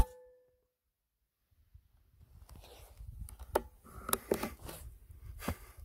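A Diana 4.5 mm (.177) air rifle firing once: a single sharp crack with a short ringing tail, the loudest sound here. After a couple of seconds of near quiet, a run of clicks and knocks from the rifle being handled.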